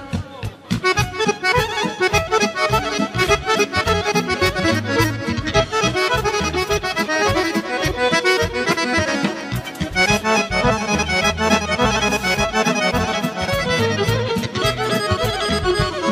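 Accordion leads a fast instrumental passage of Serbian folk music over a steady bass and beat. It comes in about half a second in.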